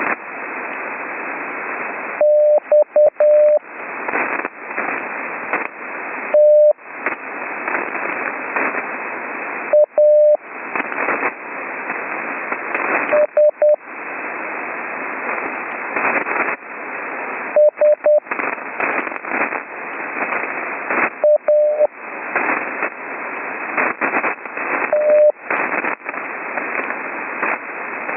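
Morse code sent slowly as a keyed, steady mid-pitched sidetone: a short cluster of dots and dashes about every three to four seconds, each heard as the receiver noise drops out. Between the characters the loud hiss and crackle of HF band noise fill the gaps, with rough conditions from a lightning storm.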